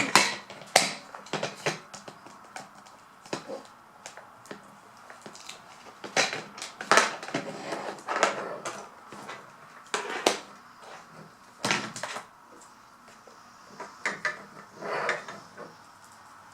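Small hard plastic toy pieces being handled, tapping and clicking against each other in irregular clusters, with louder knocks about six to eight seconds in, around ten and twelve seconds, and near the end.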